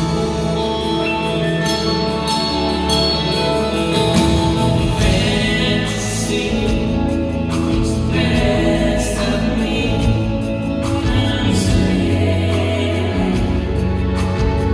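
Live band playing a slow soft-rock ballad, with electric guitar and drums under sung, layered vocals.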